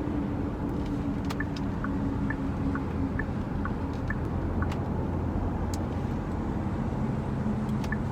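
Cabin noise of a Genesis GV70 driving at expressway speed: steady road and engine hum, with faint, short, high chirps repeating about twice a second.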